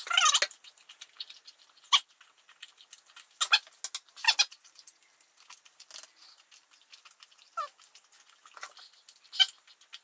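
Wet, squelching chewing of a huge mouthful of chewing gum: irregular smacks and slurps with drooling, loudest at the very start.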